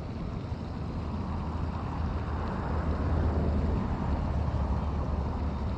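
Steady outdoor rushing noise with a low rumble, growing slightly louder about two seconds in.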